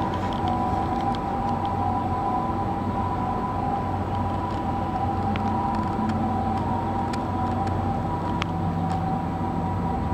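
Steady background drone of distant city and harbour, with a low hum and two constant whining tones, and a few faint ticks.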